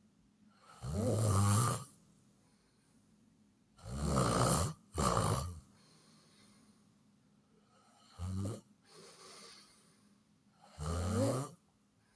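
Loud snoring: a run of rough, drawn-out snores at uneven intervals, two of them coming back to back midway, with quiet pauses between.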